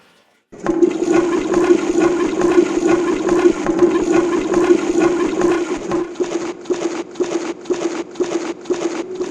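Water sound effect: loud rushing, gurgling water that starts abruptly, breaks into a pulsing gurgle of about two to three surges a second in its last few seconds, then cuts off suddenly.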